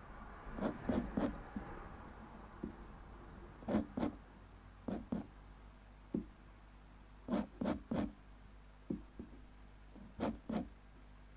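A dip pen's metal nib drawn across paper in short ink hatching strokes, mostly in quick groups of two or three with pauses of about a second between.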